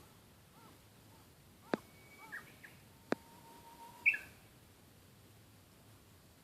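Japanese bush warbler singing: a held whistled note, then a quick, louder, higher phrase about four seconds in, the bird's hō-hokekyo song. Two sharp clicks come before it, and crows caw faintly in the early part.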